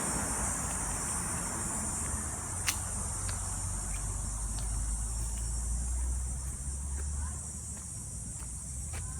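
Insects droning steadily at a high pitch, over a low rumble, with a few short bird chirps near the end.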